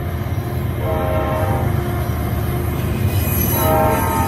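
BNSF double-stack intermodal freight train rolling past with a steady low rumble of wheels on rail. A locomotive horn chord sounds briefly about a second in and again from about three seconds in.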